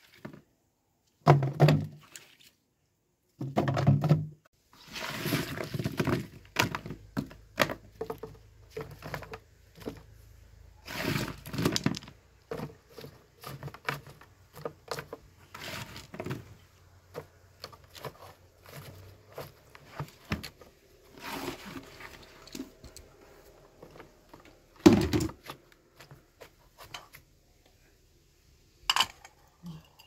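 Cut apple pieces being scooped from a plastic basin and dropped by hand into a large glass jar: irregular thunks of fruit on glass and on other pieces, with rummaging among the apples, and one sharper knock near the end.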